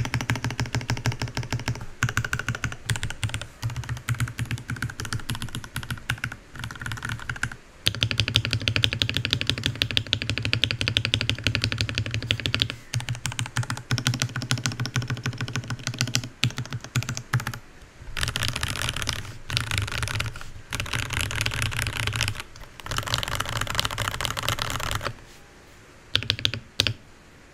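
Typing on a Varmilo Minilo 65% mechanical keyboard: a fast, continuous run of keystroke clicks. The typing stops near the end, leaving a few scattered key presses.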